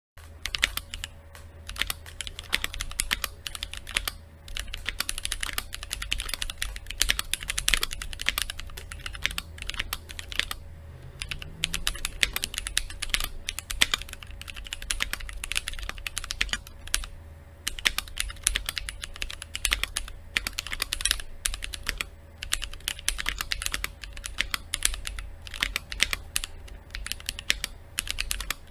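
Typing on a modded Keychron Q1 aluminium mechanical keyboard: a fast, continuous run of keystrokes with a few short pauses. It has SP Star Magic Girl Dark tactile switches, GMK keycaps and Durock V2 stabilizers, and its case is foam-isolated and lined with sound-deadening mat to damp its stock pingy, metallic sound.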